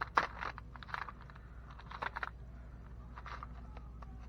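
Small loose parts clicking and rattling in irregular clusters as hands rummage through a box of spare RC truck parts.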